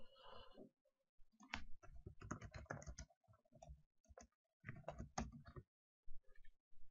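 Faint computer keyboard typing: two quick runs of keystrokes as a short chat message is typed and sent.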